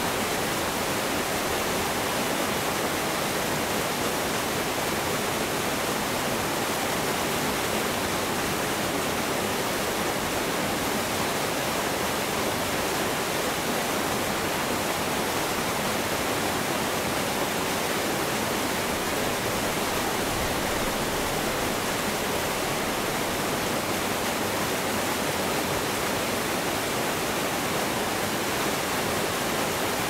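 Several waterfalls pouring in a steady, even rush of water.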